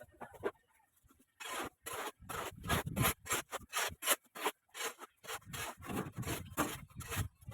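Rhythmic scraping of a hand tool on brick or mortar, about three strokes a second, starting after a second or so of near quiet.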